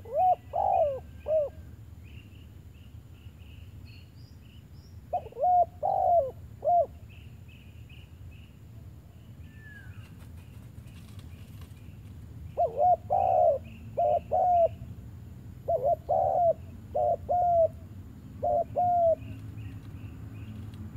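Spotted dove cooing: short bouts of three or four low coos, repeated five times with pauses between, over faint high chirping in the background.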